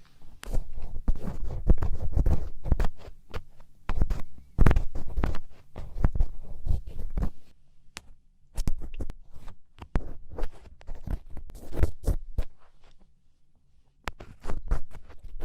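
Black ear pick scraping and scooping inside an ear canal, heard very close: an irregular run of scratches and clicks with a dull low rumble, pausing briefly about halfway and again near the end.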